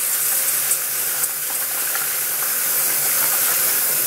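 Kitchen tap running steadily into a metal bowl of rice in a stainless steel sink, as the rice is rinsed by hand.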